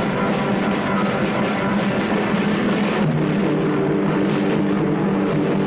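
Loud background film music with held chords, moving to new chords about three seconds in.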